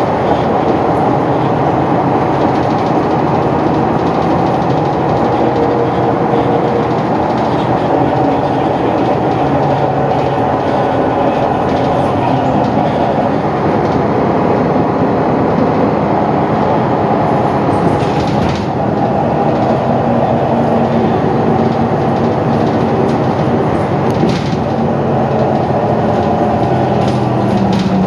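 Interior ride noise of a Mercedes-Benz Citaro O530G articulated city bus under way: the engine and drivetrain running with steady road and tyre noise. A couple of short knocks or rattles come about two-thirds of the way through.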